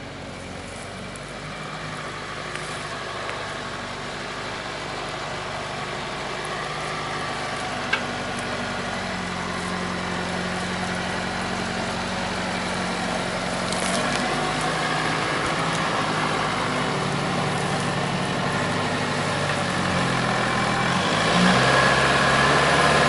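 Nissan Patrol 4x4's engine running at low revs as it crawls off-road, getting louder as it approaches and working harder near the end as it climbs a steep bank. A single sharp snap about eight seconds in.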